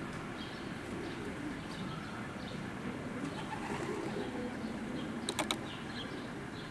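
A New York City subway train approaching the platform from a distance with a low steady rumble. Faint bird calls sound over it, and a quick run of sharp clicks comes about five seconds in.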